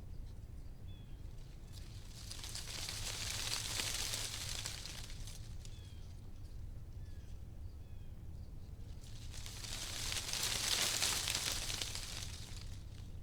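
Leaves on a tree rustling in the wind, swelling in two gusts, one about two seconds in and a louder one about nine seconds in, each dying away over a few seconds.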